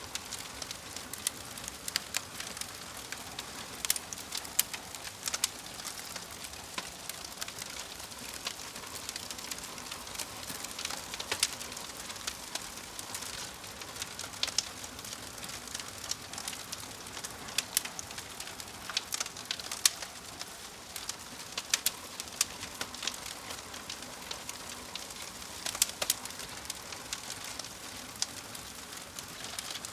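Wood fire burning in a fireplace, crackling steadily with frequent irregular sharp pops and snaps from the logs.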